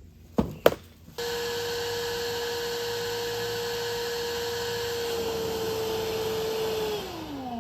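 Two sharp knocks, then a wet/dry shop vacuum switches on and runs steadily with a constant whine, sucking out an air conditioner's condensate drain line through its trap. Near the end it is switched off and the motor winds down in a falling whine.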